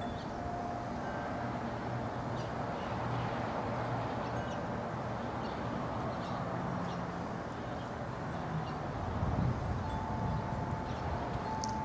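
Steady outdoor background noise with a few clear ringing tones, each held for about a second, and faint short high chirps now and then.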